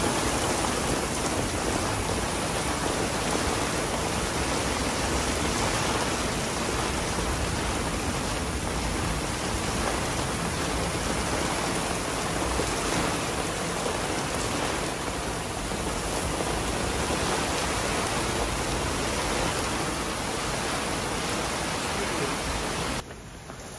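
Steady rain falling, an even hiss of drops that runs on unchanged, then cuts off abruptly near the end.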